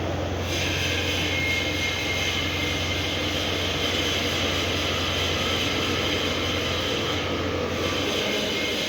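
Electric arc welding on a tank seam after the root pass: a steady, even hiss of the arc over a constant low electrical hum.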